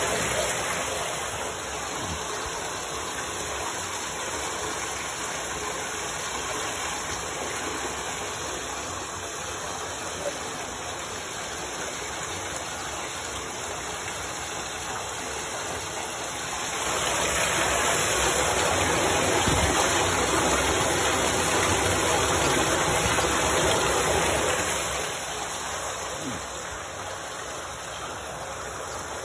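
Steady rush of wastewater flowing and splashing in the treatment tank, louder for several seconds in the second half.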